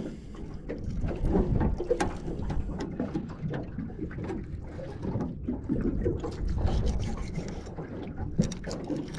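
A large knife cutting through a bonito frame on a metal bait board, making scattered small knocks and scrapes. Underneath runs a low rumble of water and wind around a small boat.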